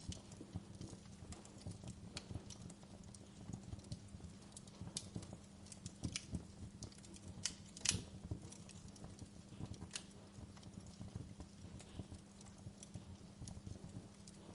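Campfire crackling: irregular sharp pops and snaps of burning wood over a low, steady fire rumble, with one louder pop about eight seconds in.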